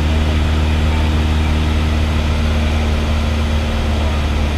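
Single-engine light aircraft's piston engine and propeller running steadily at cruise, heard from inside the cockpit: a constant low hum with no change in pitch.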